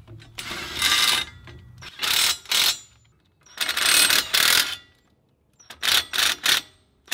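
Ryobi cordless impact wrench running in a series of bursts, two of about a second and then several short taps near the end, as it drives 3/8-inch bolts into a bracket on a truck's front differential cover.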